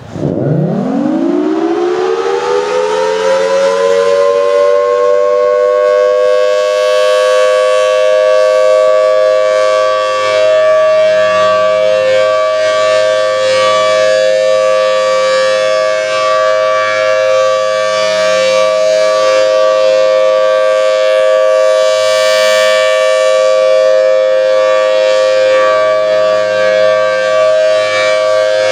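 Federal Signal Thunderbolt outdoor warning siren on a test, winding up from a low growl to full pitch in the first few seconds, then holding a steady two-tone wail. It swells louder and brighter about 7 seconds in and again about 22 seconds in as the rotating head sweeps past.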